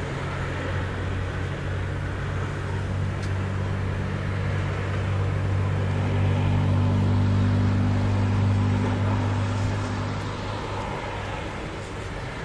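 A road vehicle's engine running nearby: a steady low drone that grows louder toward the middle and then fades away.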